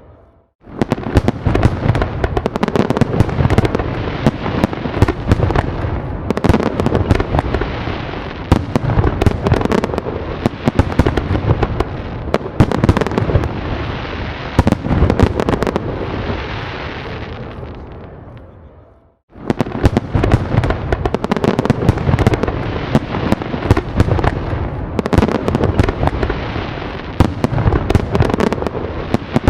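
Fireworks display: a dense barrage of overlapping bangs and crackling. It fades out about two-thirds of the way through, drops to a moment of silence, and starts again abruptly.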